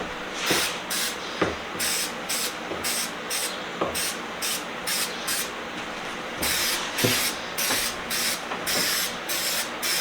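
Paint spraying in short hissing bursts, about two a second, as a coat of paint is laid on.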